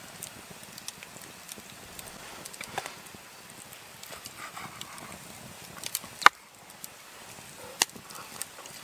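Knife carving a roast lamb joint on a wooden chopping board: soft cutting and scraping with a few sharp clicks of the blade against the wood, the loudest a little after six seconds in and another near eight seconds.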